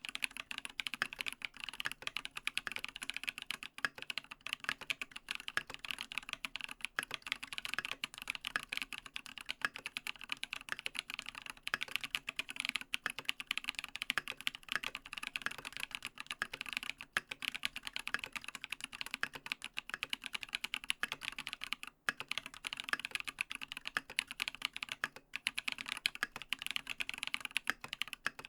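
Continuous fast typing on a mechanical keyboard with lubed Holy Panda tactile switches in a brass plate and MT3 profile keycaps: a steady stream of keystroke clacks, pausing briefly twice near the end.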